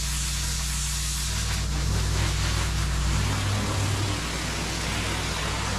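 Pressure washer lance blasting water onto block paving, a steady hiss of spray over the low, even hum of the machine running; the hum shifts in pitch about three seconds in.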